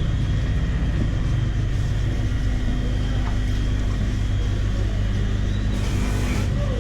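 A steady low machine hum, running evenly without change.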